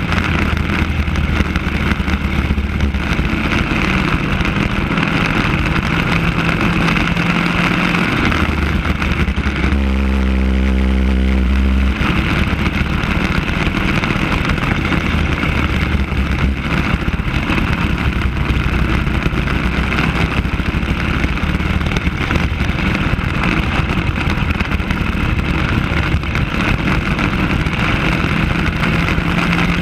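Racing go-kart engine running hard, heard close up from the kart itself, with wind and road noise rushing over it. About ten seconds in, the engine note drops to a lower, steadier pitch for a couple of seconds, then picks up again.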